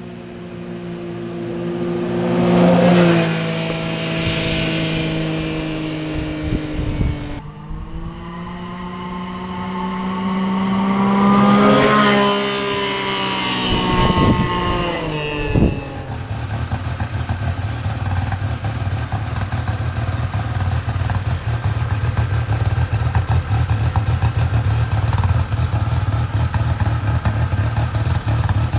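Arctic Cat Wildcat XX side-by-side passing at 35 mph twice, first on its stock exhaust and then on a Speedwerx Q6 slip-on exhaust; each time the engine note rises as it approaches and drops as it goes by. From about 16 seconds in, the engine runs steadily, heard close up at the Q6 muffler.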